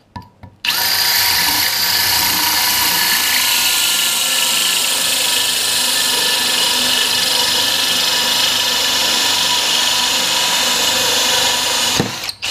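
Cordless drill spinning a diamond-grit hole saw, grinding into a concrete block. It starts under a second in, runs steadily at speed, and stops near the end.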